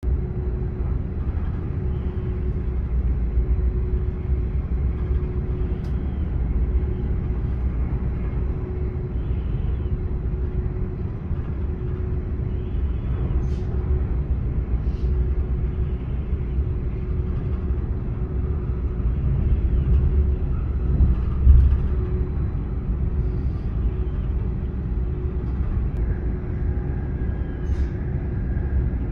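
Passenger train running along the track, heard from inside the carriage: a steady low rumble with a faint steady hum, and one brief louder thump about three-quarters of the way through.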